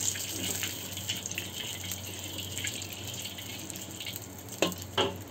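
Cooking oil heating in a wok over a gas burner: a steady hiss with small crackles. Two sharp knocks near the end.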